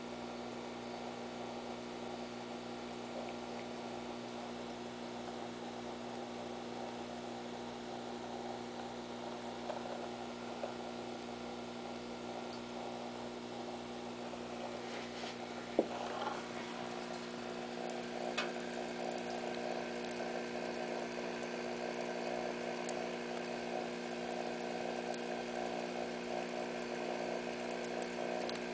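Aquarium air pump humming steadily, with a single sharp knock about halfway through.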